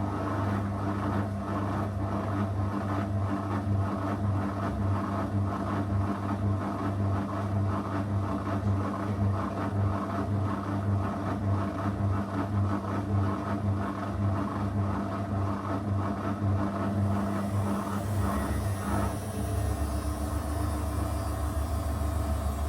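Zanussi FL984CN washing machine running a 35° program: a steady motor hum with an even pulsing rhythm. About nineteen seconds in, the higher part of the hum stops and a hiss comes in.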